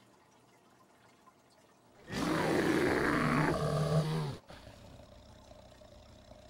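A woman's loud anguished wail of about two seconds, rough at first, then holding one low note that falls away before it cuts off abruptly.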